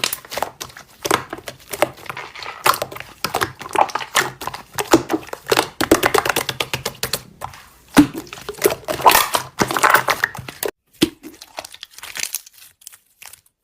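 Slime being squeezed and pressed by hand, making dense crackling, popping clicks that thin out and fall much quieter for the last few seconds.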